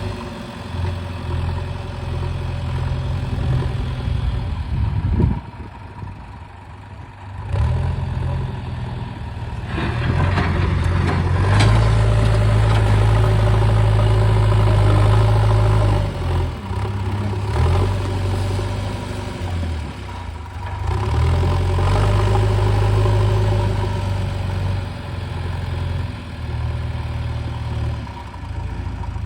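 Heavy diesel engine of an excavator running and working, its pitch and loudness rising and falling with the load. There is a quieter dip about six seconds in before it picks up again.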